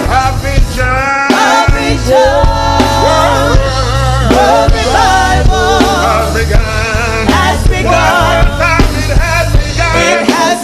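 Gospel-style music with singing over a steady bass and drum beat.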